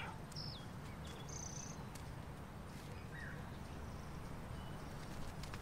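Quiet outdoor park ambience: a steady low background hush with a few brief high chirps from birds.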